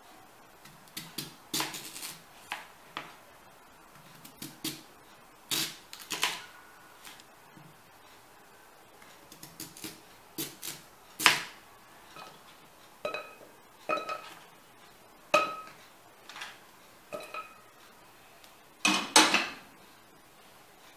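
Knife knocking on a plastic cutting board as a sweet potato is sliced in irregular strokes, with pieces clinking into a stainless steel saucepan, some leaving a short metallic ring. The loudest clatter comes near the end, as the pan is set on the stove.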